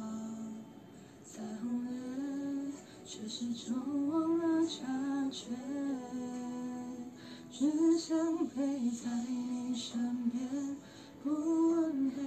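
A solo voice singing a Chinese pop song cover into a handheld microphone, with long held notes and small glides in pitch.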